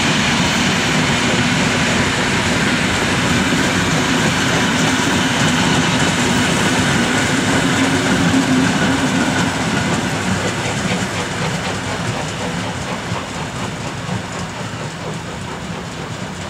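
Steam-hauled train of vintage passenger coaches rolling past, wheels clattering steadily over the track. The sound fades from about ten seconds in as the train pulls away.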